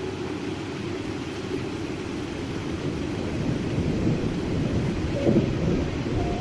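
Steady rushing noise of heavy rain and water, with a low rumble swelling from about four seconds in and peaking near five and a half seconds.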